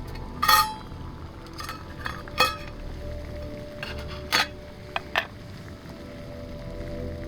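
Metal camp cookware clinking and knocking, a handful of sharp separate strikes, over quiet background music.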